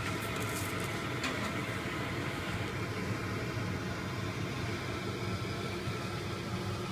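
Propane burner under a kettle corn kettle running steadily while the oil heats, with a low even hum. A single short tick about a second in.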